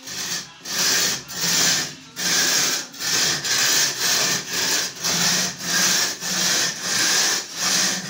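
A hand tool rasping back and forth against a hard surface, loud even strokes about two a second.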